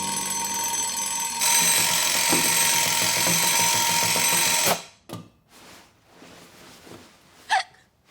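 Cartoon alarm-clock bell ringing steadily and loudly, then cut off abruptly about four and a half seconds in; a single short, sharp sound follows near the end.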